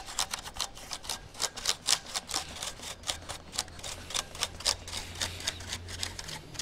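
Rapid, irregular clicking of the mechanical key switches on a Razer BlackWidow Ultimate keyboard with its keycaps removed, several clicks a second as the bare switches are worked over during cleaning. A faint low hum runs underneath.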